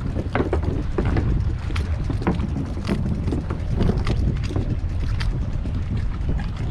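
Wind buffeting the microphone: a steady low rumble, with scattered light clicks and knocks throughout.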